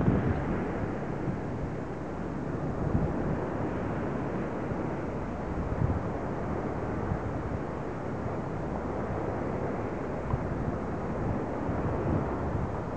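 Wind blowing over the camera microphone on an open beach: a steady rushing noise with uneven low rumbling gusts.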